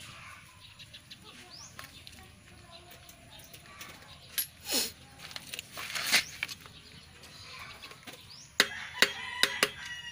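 A steel screwdriver working against the old wheel bearing inside a motorcycle wheel hub to drive it out: scattered light metal clicks and scrapes, then a quick run of sharp, ringing metal taps about eight and a half seconds in. Birds chirp in the background.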